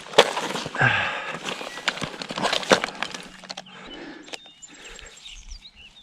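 Close-up handling noise from a freshly landed largemouth bass being readied for weighing on a fish scale: scattered clicks, knocks and rustling, busiest over the first three seconds and sparser after.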